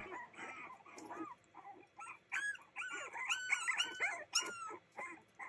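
Young Boston Terrier puppies whining and yipping: a rapid string of short, high-pitched squeaky calls, several overlapping, busiest in the middle.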